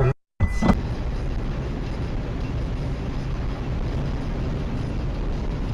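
Steady road and engine noise from a car driving at speed on a highway, as picked up by a dashcam inside the car. The sound drops out briefly near the start.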